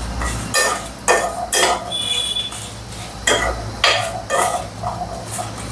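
Yellow plastic spatula stirring and scraping dried red chillies and garlic cloves around a nonstick pan as they dry-roast: a run of short scraping strokes and light knocks about half a second apart, with a brief lull midway.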